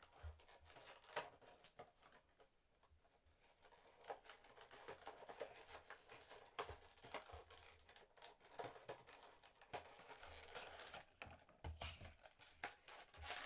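Faint handling noises from a cardboard box and its plastic packaging as vinyl figures are taken out: scattered small clicks, taps and rustles, getting busier in the last couple of seconds.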